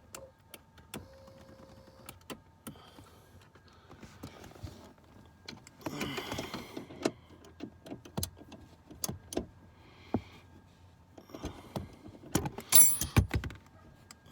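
Scattered clicks and knocks of hand tools and metal and plastic parts being handled inside a car, with a busier scraping stretch about six seconds in and a louder clatter near the end.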